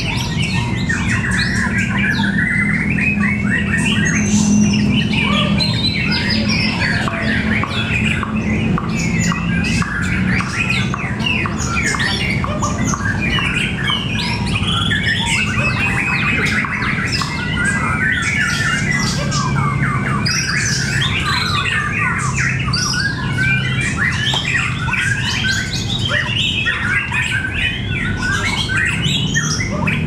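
Many caged white-rumped shamas (murai batu) singing against one another at once, a dense unbroken tangle of rapid whistles, squawks and chattering phrases. A steady low hum runs underneath.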